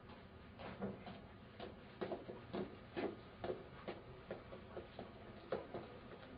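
Footsteps of a man with Parkinson's disease walking with short, quick steps: an uneven string of short taps, about two to three a second.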